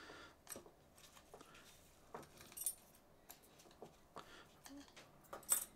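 Small reel parts from a drag clicker set being handled, giving scattered light clicks and clinks, the loudest near the end.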